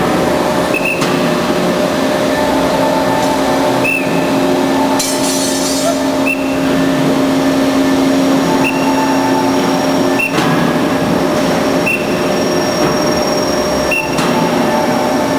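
Band saw running steadily with a constant hum, a short tick sounding every couple of seconds.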